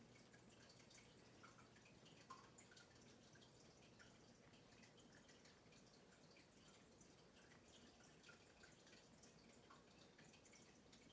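Near silence: room tone with faint, irregular small ticks and clicks.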